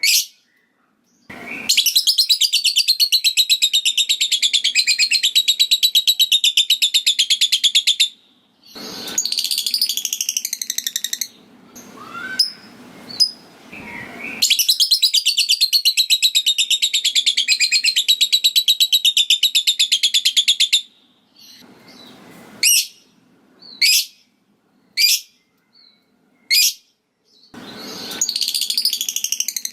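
Lovebird singing its long, very rapid chattering trill (the 'ngekek'), two stretches of about six seconds each, then a handful of short, sharp single chirps, with another chattering trill starting near the end.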